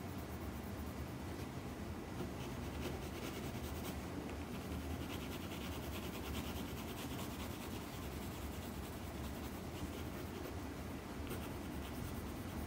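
Pencil shading on paper, many quick back-and-forth strokes that are busiest in the middle, over a steady low hum.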